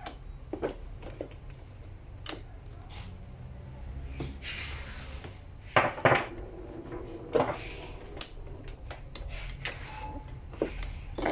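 Steel sockets and socket-set tools clinking and knocking as they are handled and reseated in a hard plastic socket-set case, with scattered clicks and the loudest clatter about six seconds in.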